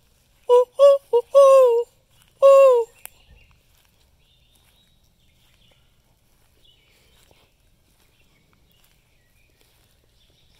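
Loud hooting in the pattern of a barred owl's 'who-cooks-for-you' call: three short hoots, then a long falling hoot, then one more long falling hoot, all within the first three seconds. A single click follows, then only faint high chirps.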